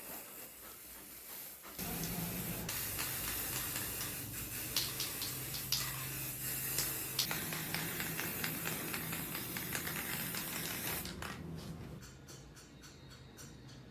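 Aerosol spray can spraying lacquer: a steady hiss that starts about two seconds in and stops near the end, with a few light clicks along the way.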